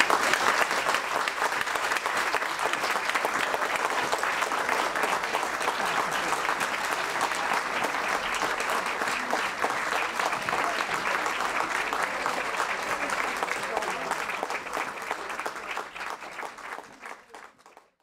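Lecture audience applauding steadily, fading out near the end.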